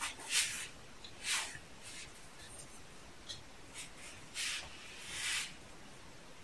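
A spoon scooping flour out of a container and tipping it into a mixing bowl: four short scratchy rasps in two pairs, with a couple of faint ticks between them.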